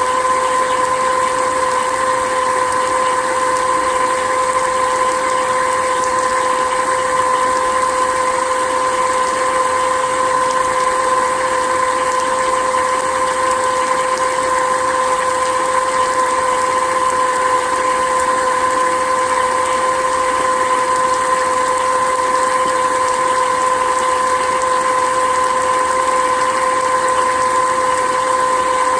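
Royal Dirt Devil hand vacuum running steadily while sitting in a puddle. Its motor gives an unchanging whine over a rushing hiss, with water spraying out of its exhaust.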